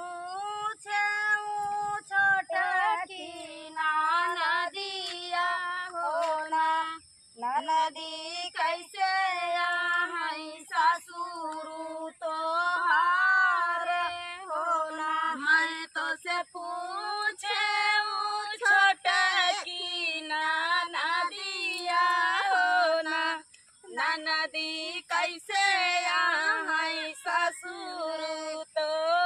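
A woman singing a rural North Indian paddy-transplanting folk song (dhaan ropai kajari geet) without instruments, in long sung phrases broken by short pauses for breath.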